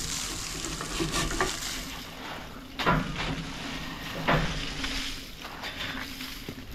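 Snow being packed by gloved hands into a metal steamer pot, crunching and crumbling, with a few sharper crunches, the loudest about three seconds and about four seconds in.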